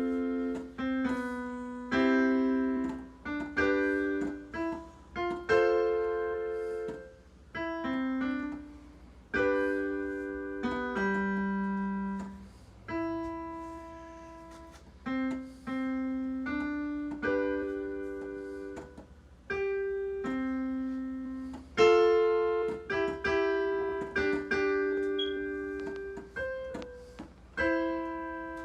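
Solo piano played at a moderate pace: melody notes over chords, each struck and left to ring and fade, in short phrases with brief pauses.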